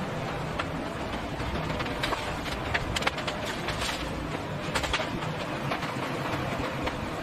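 Construction-site noise: a steady rumble of machinery with frequent short clanks and knocks scattered throughout.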